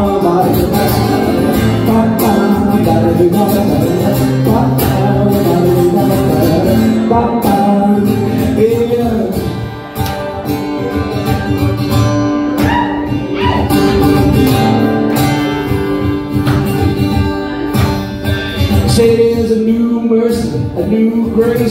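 A man's live singer-songwriter performance: a strummed acoustic guitar with his voice over it, played through a PA, with a brief dip in loudness about halfway through.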